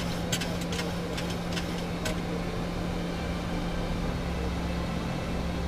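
Steady airliner cockpit noise: a constant drone of engines and airflow with a low hum, broken by a few short clicks in the first two seconds.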